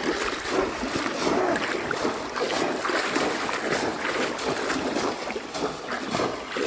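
River water splashing and sloshing, with many short sharp splashes throughout.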